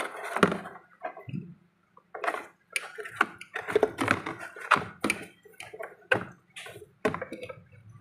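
Irregular knocks, clicks and scrapes of a refrigerator's steel drain-tray pipework being pulled out and handled, during a check for a refrigerant leak.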